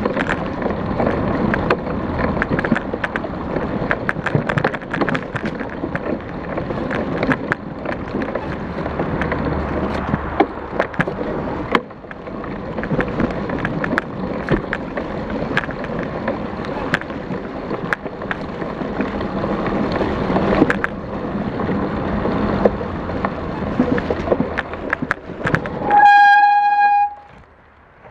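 Trek Elite 8.6 mountain bike ridden over a bumpy, leaf-covered dirt trail, picked up by a GoPro on the bike: a continuous rattling rumble of tyres and frame with many sharp knocks over roots and bumps. Near the end a steady high tone sounds for about a second, then the riding noise stops and it goes quiet.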